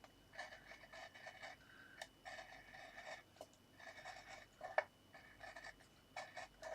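Craft knife blade drawn through printed card in short, repeated scratchy strokes, with one sharp tick about five seconds in.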